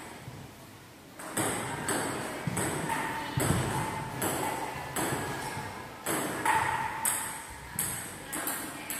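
Table tennis rally: the celluloid ball clicks off the paddles and the table in a steady back-and-forth, a sharp hit about every half second, each one echoing in a large, hard-floored hall. The rally starts about a second in.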